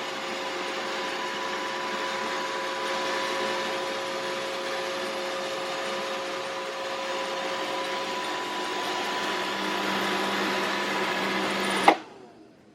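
iRobot Roomba 675 robot vacuum running, its motor and brushes giving a steady whirring hum with a few steady whine tones as it heads back to its dock. The sound cuts off suddenly near the end.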